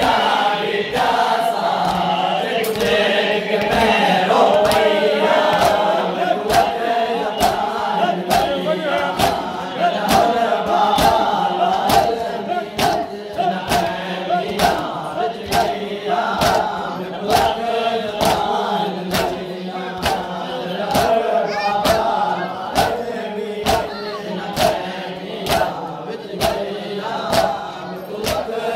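Crowd of male mourners chanting a noha, a Shia lament, in unison, with a steady beat of chest-beating (matam) striking about one and a half times a second.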